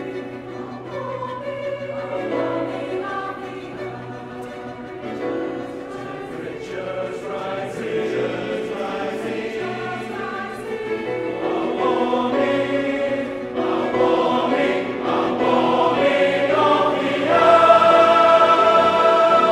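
Large choir singing, the sound swelling gradually and settling near the end onto a long held chord.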